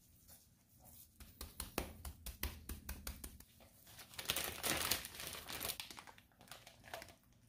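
Spice rub shaken from a shaker jar onto raw steaks in a run of quick ticks, then a plastic zip-top bag crinkling as the steaks are handled into it.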